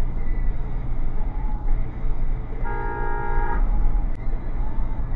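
A car horn honks once, a little past the middle, for just under a second. Under it runs the steady low rumble of road and engine noise heard from inside a moving car.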